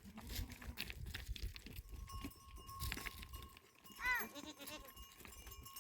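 A goat bleats once, briefly, about four seconds in, over low rumbling and knocks.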